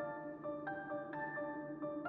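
Background music: a melody of struck, ringing notes, about two a second, over a held low note.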